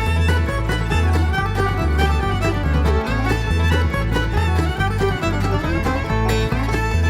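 Background music: an upbeat bluegrass-style tune with fiddle over plucked strings and a steady bass.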